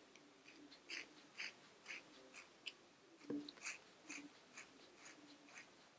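Scissors snipping through a thick bunched ponytail of hair: a faint series of short, crisp cuts about two a second, as the blades work slowly through the bundle.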